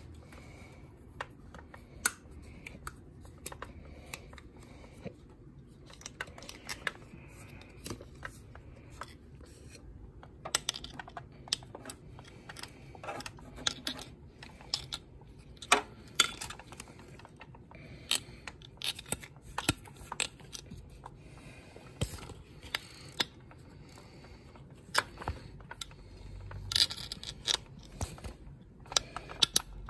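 Irregular small clicks, taps and rubbing from hands working the rubber anode cap and its high-voltage lead off a CRT picture tube, with a few sharper clicks and a brief low bump near the end.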